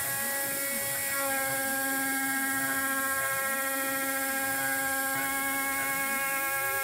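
CNC mill spindle running an end mill through aluminium plate, cutting around the wall of a large bore: a steady whine, with a lower tone sweeping up and down over and over as the cutter travels around the circle.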